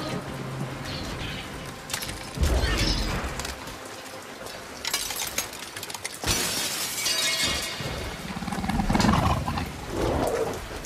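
Indoraptor's claws clicking and tapping on a rain-wet glass roof: a few sharp glassy strikes, some with a ringing tail, over steady rain. A deep rumble comes about two and a half seconds in.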